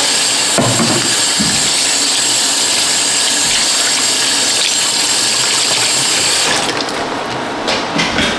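Kitchen tap running into a sink, a steady rush of water, turned off about six and a half seconds in; a few light clinks and knocks follow.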